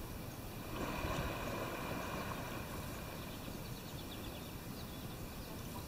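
Faint outdoor ambience: a steady background hiss that swells about a second in and fades away over the next two seconds.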